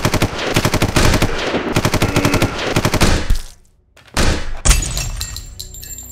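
Automatic gunfire, a film-style sound effect: a rapid stream of shots lasting about three and a half seconds, then after a short pause a second, shorter volley. A thin, high ringing tone lingers after the second volley and fades.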